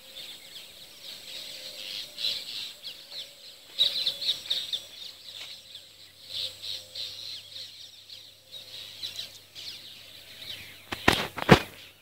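Many small birds chirping and chattering, with two loud thumps about a second before the end.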